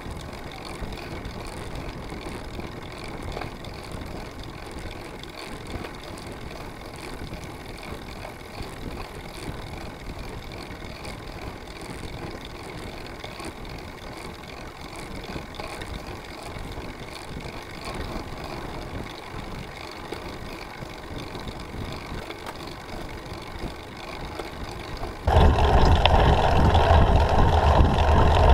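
Steady wind and road noise picked up by an action camera riding among road bicycles on a climb. About 25 seconds in the noise jumps suddenly much louder, into heavy wind buffeting on the camera as the view changes to a handlebar mount.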